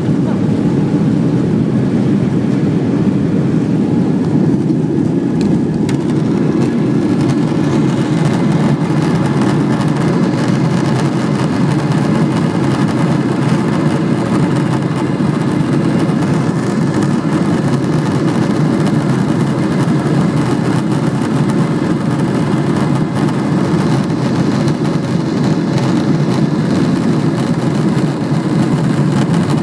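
Passenger aircraft's engines and runway rumble heard inside the cabin during the takeoff roll: a loud, steady rumble with a faint whine above it that strengthens about six seconds in.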